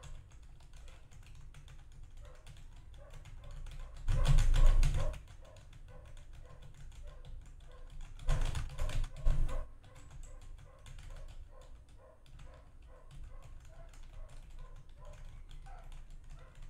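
Computer keyboard typing, a steady patter of faint key clicks picked up only a little by a condenser microphone. Two louder, fuller bursts of noise break in, one about four seconds in and one from about eight to nine and a half seconds.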